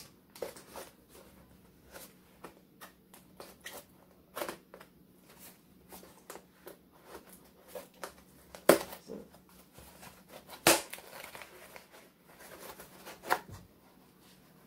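Cardboard shipping box handled and torn open by hand: a run of light taps, scrapes and crinkles, with three sharper tearing cracks in the second half.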